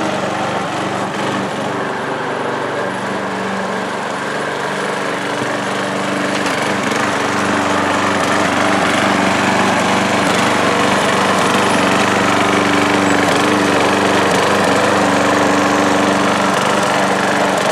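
Lawn mower engine running steadily with a homemade wooden blade, cut from a fence board, spinning under the deck. It gets a little louder several seconds in.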